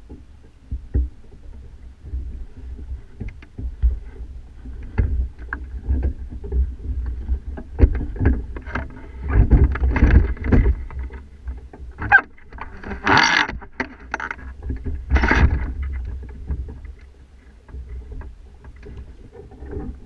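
Low wind rumble and buffeting on a camera mounted atop a sailing kayak's mast, with scattered knocks and rattles from the mast and rigging. Two louder rushing bursts come near the middle, about two seconds apart.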